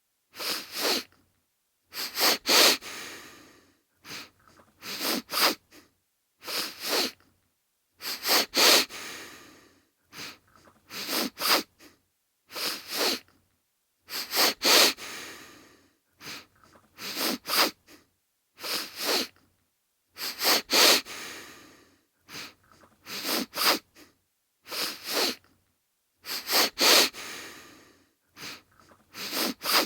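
A man sniffling through a runny nose. The sniffs come in quick clusters of two or three about every two seconds, and every few clusters one trails off more slowly.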